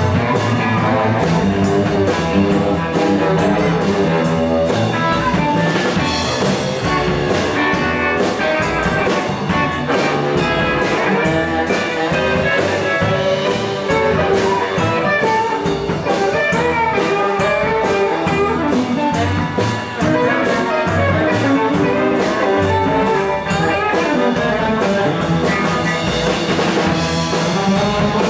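Live blues band playing an instrumental passage, with a saxophone carrying the tune over electric guitar, acoustic guitar and drum kit.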